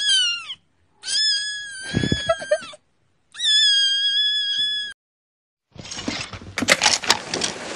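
A kitten meowing three times: a short falling call, then two long drawn-out calls. About six seconds in comes a stretch of dense crackling noise.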